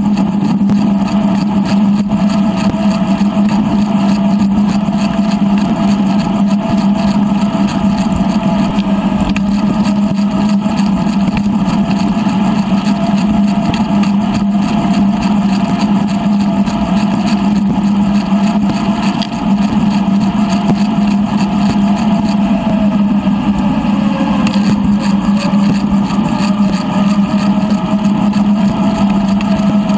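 Steady mechanical hum of a bicycle ride on an asphalt path, recorded on a GoPro and sped up three times, so that tyre and riding noise become a constant drone. A higher tone in it wavers, dipping briefly about three quarters of the way through.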